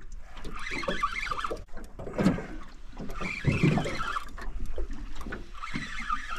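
Choppy water slapping against the hull of a small aluminium boat, with wind rumbling on the microphone and a few knocks.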